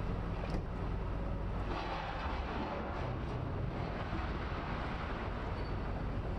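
Steady low rumble of heavy demolition-site machinery, with a couple of sharp clanks in the first two seconds.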